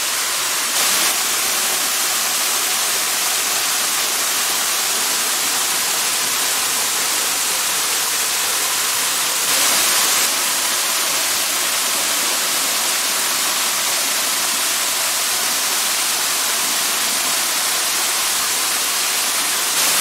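Waterfall pouring into a rock pool: a steady, hissing rush of water, briefly louder about a second in and again around halfway.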